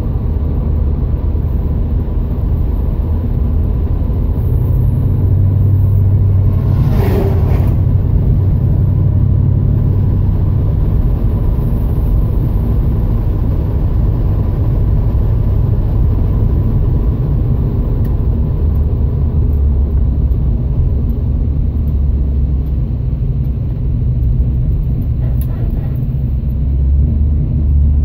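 Plymouth Scamp under way, its engine and road noise heard from inside the cabin as a steady low rumble, with a brief sharper noise about seven seconds in.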